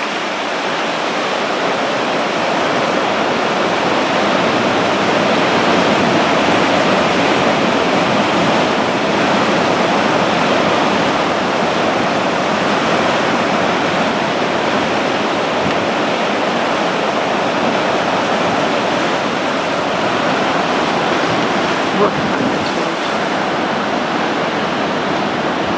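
Heavy Atlantic surf breaking in a loud, continuous rush of storm waves, swelling a little in the middle.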